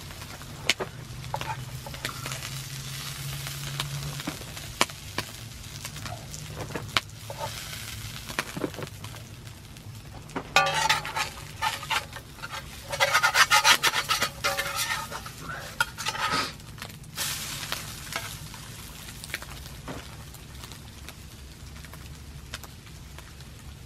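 Eggs and lamb sausages sizzling in fat in a heavy steel frying pan over campfire coals, with a spoon scraping and clinking against the pan. The scraping and sizzling grow loudest for several seconds around the middle, as the spoon works at the egg.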